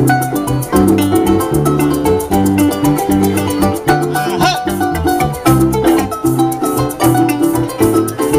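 Instrumental passage of a live folk band: a plucked harp melody over a steady, repeating bass line, with maracas shaking along, and no singing.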